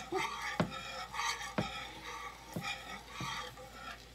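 Wire whisk stirring thick, melting cheese sauce in a nonstick pan: rhythmic wet swishing strokes, with a light click of the wires against the pan on each stroke.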